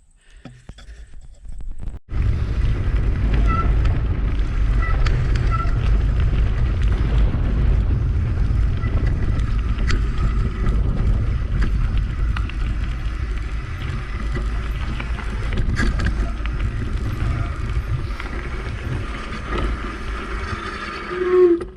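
Wind buffeting the microphone on a moving bicycle, a steady low rush that starts abruptly about two seconds in.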